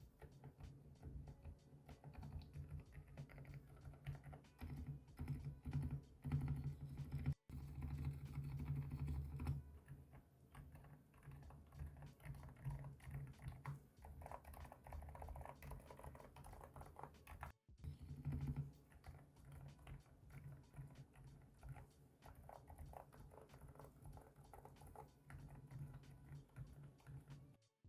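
Rapid typing on a mechanical keyboard fitted with Kailh Deep Sea switches, keystrokes coming in quick, dense runs. The sound drops out for an instant twice, about a quarter and about two-thirds of the way through.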